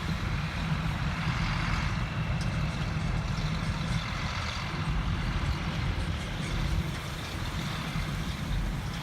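Corn-harvesting machinery running: a heavy engine's steady low hum under a constant rushing noise.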